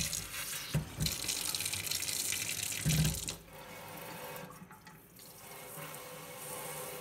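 Kitchen sink spray hose running, its water hissing and splashing in a stainless steel sink while it is pushed into a deer liver's blood vessels to flush the blood out and fill the organ with water. The spray drops to a quieter hiss about three seconds in.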